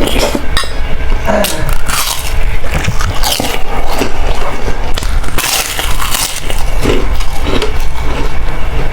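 Close-miked eating: kerupuk crackers crunching and being chewed, in a run of irregular crackly bites.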